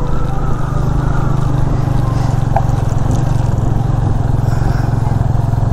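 Suzuki GS150 motorcycle's single-cylinder four-stroke engine running steadily at an even speed as the bike is ridden.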